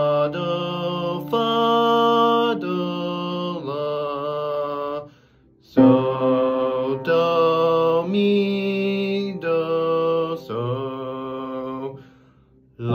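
A young man's unaccompanied voice sight-singing a chord progression on solfège syllables: slow held notes, changing about once a second, in two phrases with a brief breath about five seconds in.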